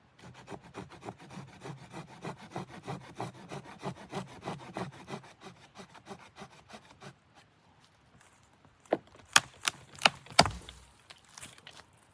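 Fast, even rasping strokes, like a saw cutting through wood, for about seven seconds. Near the end come four sharp cracks or knocks.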